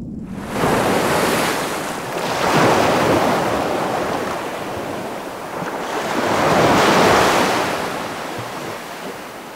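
Small sea waves breaking and washing up a sandy beach, the surf swelling three times: just under a second in, around three seconds, and around seven seconds.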